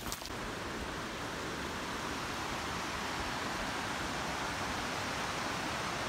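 Mountain stream rushing over rocks at the bottom of a gorge, a steady even hiss of water that cuts off abruptly at the end.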